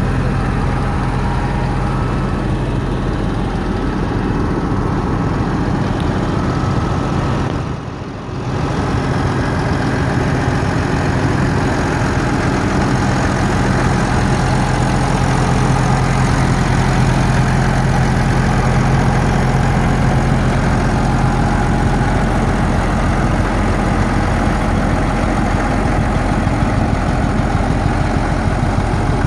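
Massey Ferguson 2680 tractor's six-cylinder diesel engine idling steadily, with a brief dip in level about eight seconds in.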